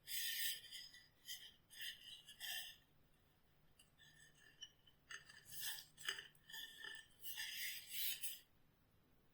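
Faint, irregular scraping strokes, like hand work on a hard surface. They come in two runs of short strokes, the first in the opening three seconds and the second from about five to eight seconds in, with a quiet gap between.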